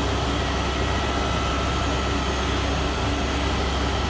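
CNC machine running its program in automatic mode: a steady mechanical hum with a thin, steady high whine over it.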